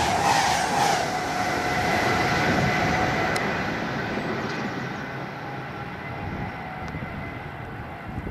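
Class 390 Pendolino electric express passing at speed: the last carriages go by in about the first second, with a regular beat of wheels over the rail joints and a steady whine. Then the train's rumble fades steadily as it runs away down the line.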